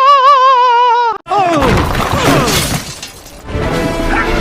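Cartoon sound-effect montage: a long, wavering high scream with vibrato cuts off abruptly about a second in. A short falling glide and a noisy crash follow.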